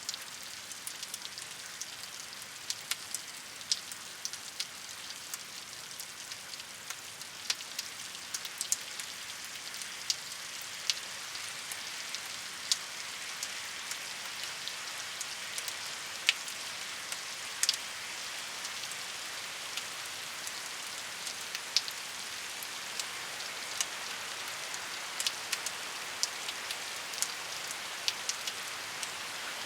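Steady rain falling on a surface, an even hiss with many separate drops ticking sharply through it.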